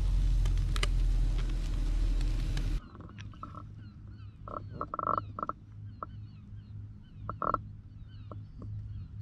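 Charcoal barbecue grill sizzling loudly under lobster and prawns for about three seconds, then cutting off abruptly. After that come quieter bird calls: many short chirps, with a few louder calls around the middle and again a little later, over a low steady hum.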